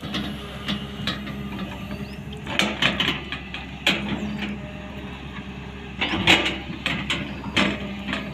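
Hyundai 245 long-boom excavator's diesel engine running steadily, with sharp knocks and scrapes every second or two as the bucket works the soil, the loudest about six seconds in.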